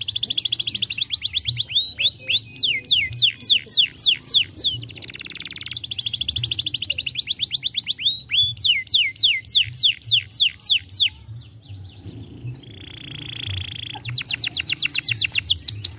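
Domestic canary singing: a run of tours, each one note repeated many times, alternating fast rolling trills with slower series of sweeping whistles at about four or five a second. A harsh buzzy tour comes a couple of seconds before the end.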